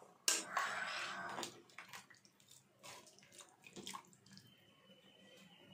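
Soaked rice being tipped into boiling water in a steel pot and mixed in: a splashing, sloshing stretch in the first second and a half, then softer scattered clicks and stirring sounds.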